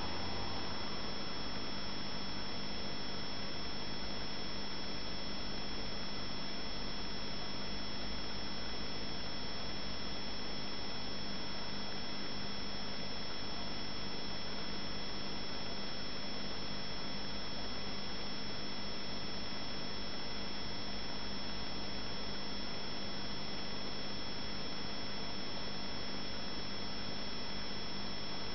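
Aquarium aeration bubbles and tank equipment: a steady, unchanging hiss with a steady hum under it.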